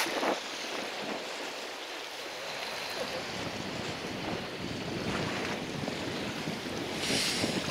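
Choppy sea sloshing against a small boat's hull, with wind on the microphone. A short, louder hiss rises about seven seconds in.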